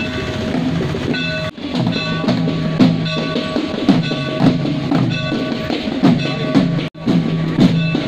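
Music with a drum beat of low, pitch-bending drum strokes and a few held tones above, cutting out briefly twice.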